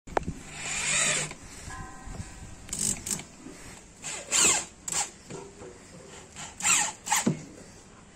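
Corded electric drill driving screws to fasten a speaker driver into a wooden cabinet, whirring in about five short bursts with its pitch sweeping up and down in each.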